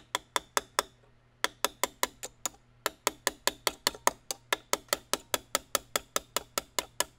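Small hammer tapping steadily on a steel punch to drive an angled screw out of a German drilling's action, about four to five sharp metallic taps a second, with two brief pauses in the first three seconds.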